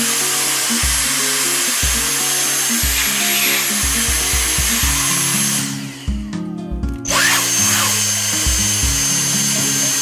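Dyson DC74 cordless vacuum cleaner's motor running with a steady high whine, cutting off a little under six seconds in and starting up again about a second later, over background music with a steady beat.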